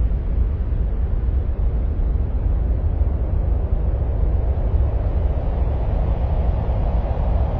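Steady, deep rumbling noise with no distinct events, a space-ambient track presented as the sound of Mars. A little more mid-range rush comes in near the end.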